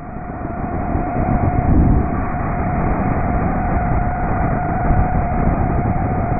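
Steady rushing roar of a Vertical Launch ASROC's rocket motor and exhaust blasting out of a destroyer's Mk 41 vertical launch cell just after ignition. It builds over the first two seconds and then holds, with a steady tone running through it.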